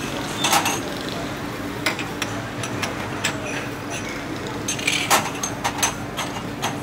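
Scattered clinks and knocks of dishes and utensils, with a cluster of them about five seconds in, over background voices and a steady low hum.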